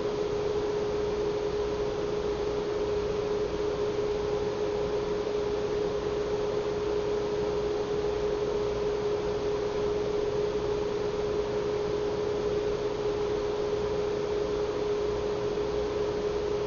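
Steady hum: one unchanging mid-pitched tone held over a constant hiss, with no other sounds on top.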